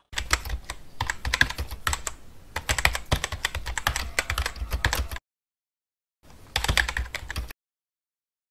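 Rapid, irregular clicking of computer keyboard typing for about five seconds. It stops, then comes back as a shorter run of typing a second later and cuts off suddenly.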